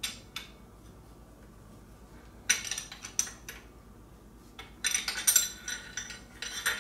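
Metal hand tools clinking and clattering: sockets and wrenches knocking against each other and against metal in irregular bursts of bright, ringing clinks, busiest in the last two seconds.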